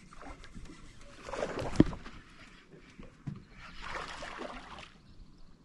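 Water splashing twice beside a small aluminum fishing boat, with a sharp knock during the first splash.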